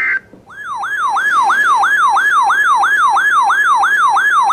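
Electronic yelp siren, a rapid rise-and-fall wail repeating about three times a second, used as an emergency alert tone. It is preceded right at the start by a split-second burst of high EAS data tones.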